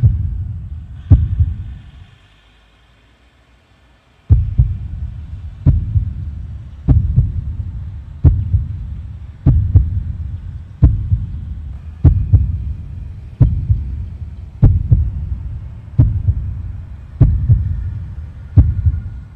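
Added soundtrack of deep, heavy thumps, one about every 1.3 seconds, each a sharp hit that dies away in a low rumble, with a break of about two seconds near the start.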